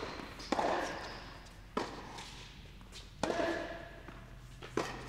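Tennis ball struck by rackets in a baseline rally on an indoor hard court: four sharp hits about a second and a half apart, each echoing in the hall.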